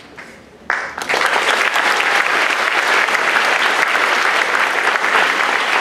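Audience applauding, starting suddenly under a second in after a brief hush and then holding steady.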